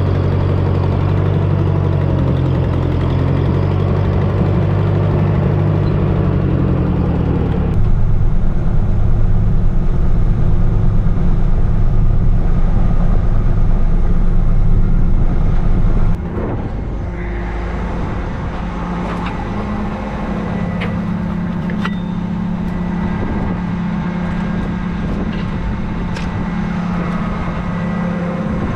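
Heavy diesel engine of farm machinery running. It comes in three stretches that change abruptly about eight and sixteen seconds in, and the last stretch is quieter.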